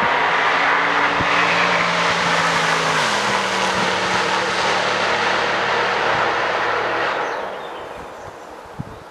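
Mercedes-Benz C63 AMG V8, tuned by Väth as a C63RS, running loud at high revs with a heavy exhaust roar. Its pitch drops about three seconds in, and the sound fades away near the end.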